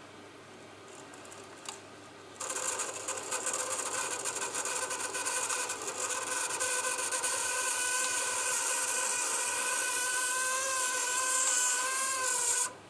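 Viessmann Vitodens 200 WB2A gas condensing boiler squealing: a high, slightly wavering whine over a rushing hiss that starts about two and a half seconds in and cuts off suddenly near the end. The owner traces the squeal to the boiler's bypass valve.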